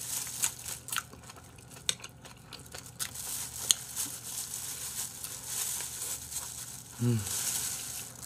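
Clear plastic bag crinkling and rustling in irregular bursts as sliced boiled pork is shaken down into it, with small clicks, and a short voice sound near the end.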